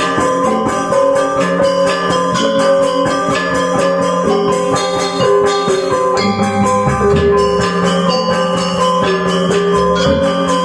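Balinese gamelan gong ensemble playing: fast interlocking strokes on bronze metallophones over sustained ringing tones. Deep low notes come in about six seconds in and again near the end.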